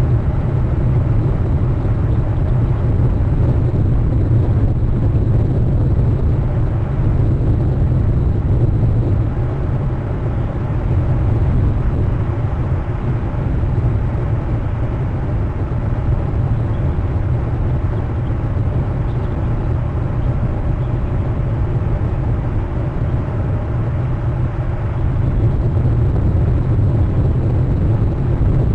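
Steady low rumble on the nest camera's outdoor microphone, heaviest in the deep bass, with no distinct calls or other events standing out.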